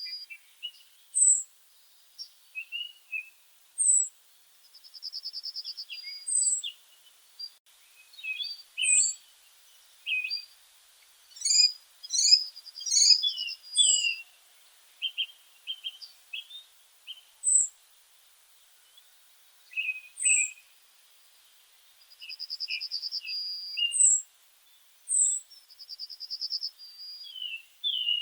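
Songbirds singing and calling. A high, thin, down-slurred note repeats every two to three seconds; buzzy trills about a second long come four times; short chirps are scattered throughout, thickest in the middle.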